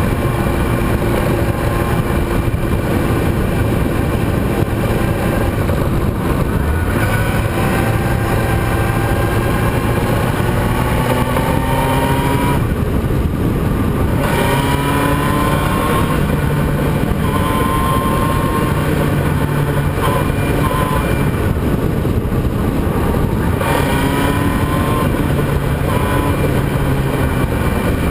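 Racing vehicle's engine heard onboard at speed, its pitch rising through several accelerations and breaking off at each shift or lift, over a steady rush of wind and road noise.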